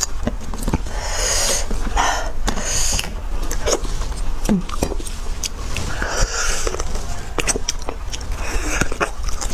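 Close-miked wet mouth sounds of a person eating braised beef bone marrow in spicy sauce: sticky chewing with many small lip smacks and clicks, and a few short slurps.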